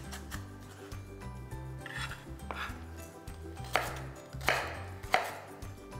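Chef's knife dicing celery on a plastic cutting board: a run of quick knife strikes against the board, with a few sharper, louder chops.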